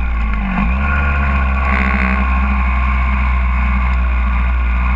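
Honda CR125 two-stroke single-cylinder dirt bike engine running under way. Its revs dip briefly about half a second in, then hold steady.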